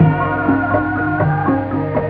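Javanese gamelan accompanying tayub: struck bronze keyed instruments ring out a melody, a new note every quarter to half second, over a low sustained tone.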